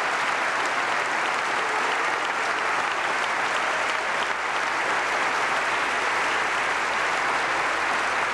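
Audience applauding: steady, sustained clapping with no break.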